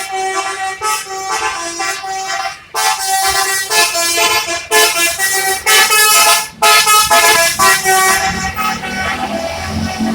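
Bus's multi-tone 'Basuri' telolet horn playing a jaunty tune of short, loud blasts, the notes jumping every fraction of a second. Near the end the horn stops and a low engine rumble rises.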